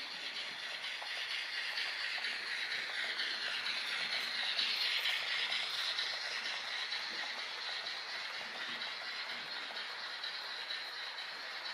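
A model Thompson L1 locomotive hauling a train of model ore wagons running on a train-set track, a steady whirring rattle of wheels on the rails. It gets louder about halfway through as the train passes close, then eases off.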